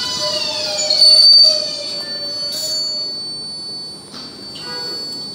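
R188 subway train braking into the station: the whine of its electric traction drive falls steadily in pitch as it slows, with a loud, high wheel squeal about a second in, and the sound fades as the train comes to a stop.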